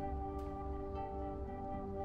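Background music: a slow ambient track of long, held ringing tones over a low bass, with the chord shifting about a second in.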